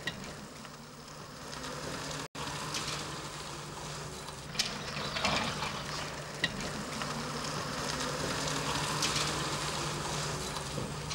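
Crackling hiss with a steady low hum and scattered clicks, with a brief dropout about two seconds in.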